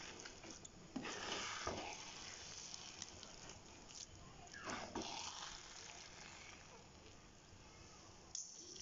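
Thick purple sticky-rice mixture sizzling faintly in a hot pan as it is stirred, with a few short scraping strokes in the first five seconds.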